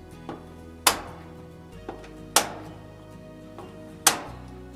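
Brinkmann gas grill's push-button igniter snapping as the burner is being lit: three sharp clicks about a second and a half apart, each with a fainter tick just before it, over background music.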